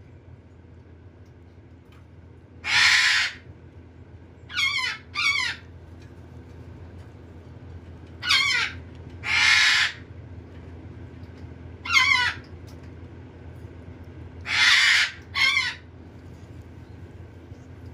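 Red-sided eclectus parrot chick giving harsh, raspy squawks, eight in all in bouts of one to three. Some are longer, noisy screeches and others shorter calls with a wavering, falling tone. These are the food-begging calls of a hand-fed chick.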